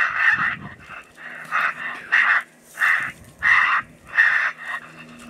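Raccoon squaller call blown in a string of short, harsh squalls, about one or two a second, imitating raccoons fighting to draw raccoons out of the brush pile.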